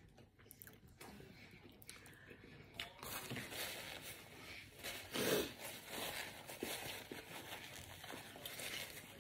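Faint rustling and crinkling of a paper sandwich wrapper being handled and peeled back, starting about three seconds in, with a bite into the burger near the end.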